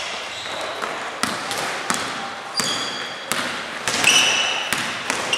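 Basketball being dribbled on a hard gym floor, bouncing about every 0.7 s, with a few short high squeaks, typical of sneakers on the court.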